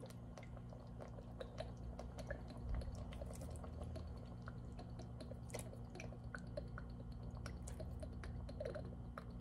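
Faint, scattered crackles and small pops from melted butter and onions cooking gently in a pan on the stove, over a low steady hum.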